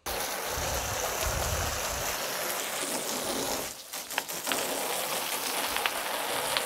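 Water from a garden hose spraying onto a tractor's front grille, rinsing off the descaler: a steady hiss and splatter that weakens briefly a little past halfway, then resumes.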